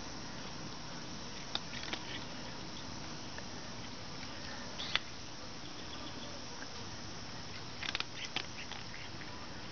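A gray cat moving about on concrete: a few short, sharp clicks and scuffs, with a small cluster of them near the end, over a steady outdoor hiss.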